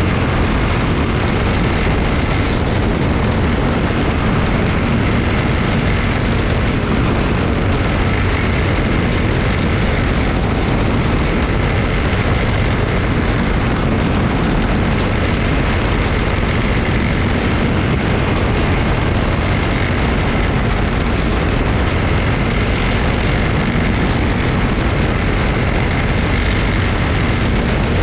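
A pack of small Honda-engined race cars running together at race speed, a dense, steady blend of engines with no let-up.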